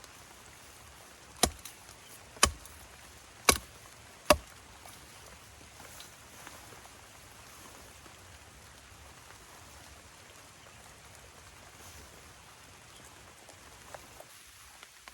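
Four sharp knocks, about a second apart, over a steady soft hiss of outdoor background.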